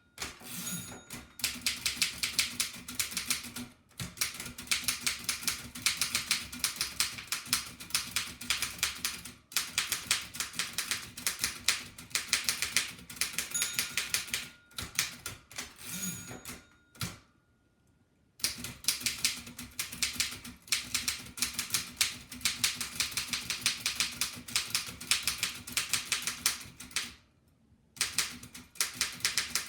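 1894 Densmore No. 1 typewriter being typed on quickly: a rapid run of key strikes clattering several times a second, broken by a few short pauses, the longest about a second and a half just past halfway.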